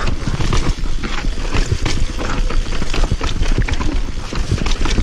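Transition TR500 downhill mountain bike rattling at speed over a rough dirt trail: a stream of irregular knocks and clatter from the tyres and frame hitting roots and rocks, over a constant low rumble of wind on the camera microphone.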